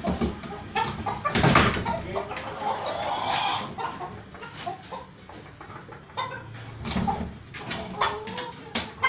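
Chickens clucking, with scattered knocks and taps and a louder bump about one and a half seconds in.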